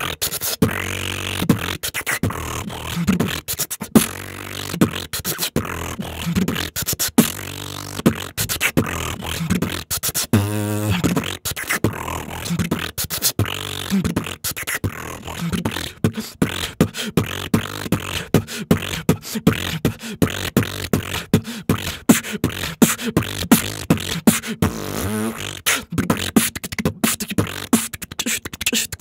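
Human beatboxing: a steady rhythm of mouth-made percussion hits, with short pitched vocal notes now and then.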